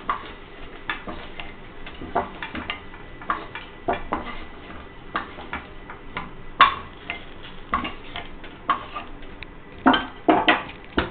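A cooking utensil clinks and scrapes against a non-stick kadai as fried semolina balls are lifted out one by one. The clicks and knocks come at irregular intervals, with a quick cluster of louder knocks near the end.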